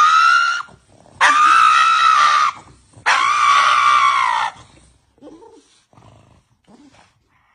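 Pug screaming in long, high-pitched cries, three in a row, while its nails are being trimmed: a dog protesting at the nail trim. A few faint short sounds follow after about five seconds.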